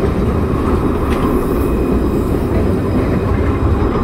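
Alstom Citadis low-floor tram passing close by on street track: a steady rolling rumble of wheels and running gear.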